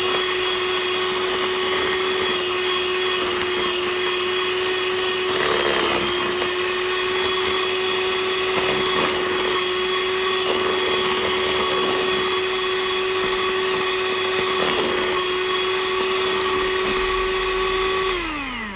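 Handheld electric mixer running steadily, its beaters whipping a tub of thick body cream. Near the end it is switched off and its whine drops in pitch and dies away.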